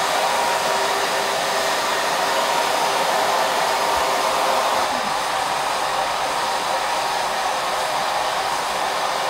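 Two handheld hair dryers blowing at once, a steady rush of air with a faint hum.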